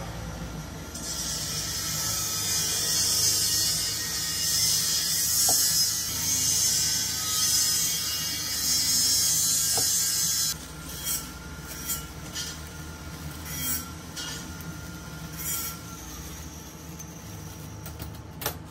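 Crushed Oreo cookie crumbs shaken from a perforated shaker onto a whipped-cream waffle: a steady hiss of falling crumbs for about ten seconds, then several light taps, over a low steady hum.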